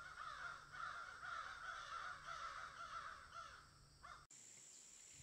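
A flock of birds calling faintly, many short calls repeating and overlapping, cutting off suddenly about four seconds in.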